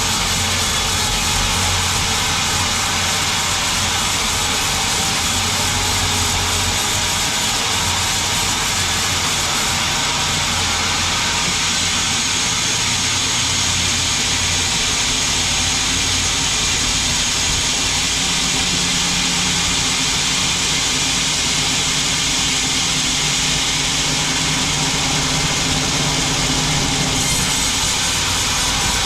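Band sawmill running steadily, its blade sawing through a log, with a constant loud machine noise over a low motor hum that shifts up in pitch about twelve seconds in.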